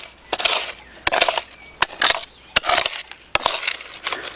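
Small hand hoe chopping and scraping into damp earth and gravel, about five strokes a little under a second apart: each a sharp hit followed by a short gritty rasp of soil and small stones.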